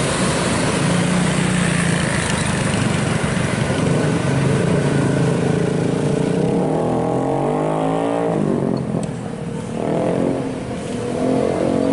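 Heavy vehicles, most likely intercity buses, passing on the road with diesel engines running under a wash of tyre and road noise. From about six and a half seconds in the hiss drops and the engine pitch slides up and down as engine speed changes.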